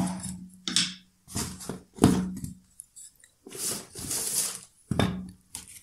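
Hands lifting accessories out of a moulded foam case: a series of short scrapes, clicks and rustles, with a longer rustling scrape about three and a half seconds in.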